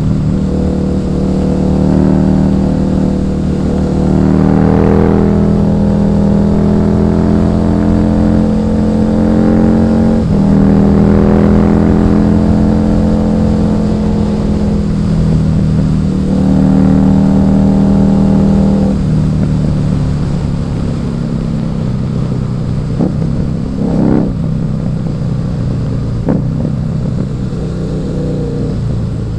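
Husqvarna Nuda 900R's parallel-twin engine running under way, recorded on the bike. It holds fairly steady revs, with a change in pitch about ten seconds in. It drops to lower, quieter running from about twenty seconds on, with a few short sharp clicks near the end.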